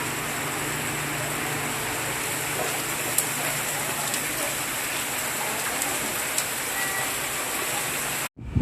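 Heavy rain falling steadily, a dense hiss with a few sharp drop taps; it cuts off suddenly near the end.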